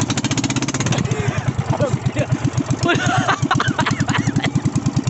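Small gasoline inboard engine of a wooden fishing boat running, fast for about a second and then settling into a slow, even putter of about ten beats a second.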